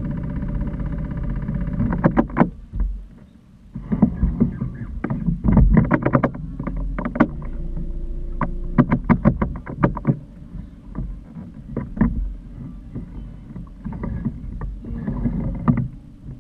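A small boat's motor running with a steady hum, then a long string of sharp knocks and clatters over a low rumble, with a brief lull about three seconds in.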